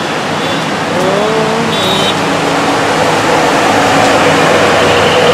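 Heavy rain pouring down in a loud, steady hiss. Under it runs a fainter droning tone that rises in pitch about a second in, then holds steady.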